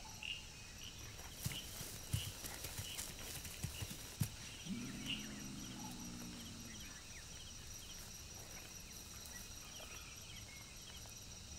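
Soft crackles and rustles of dry grass under a tiger's slow, careful footsteps, mostly in the first few seconds, over faint chirping of night insects. A faint low sound that falls in pitch comes about five seconds in.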